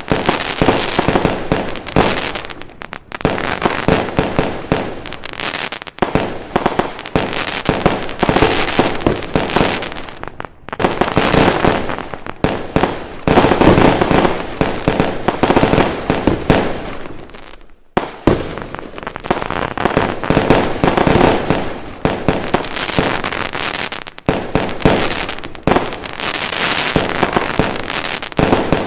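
Fireworks and firecrackers going off in rapid, dense volleys of loud cracks and pops, with brief lulls between the bursts.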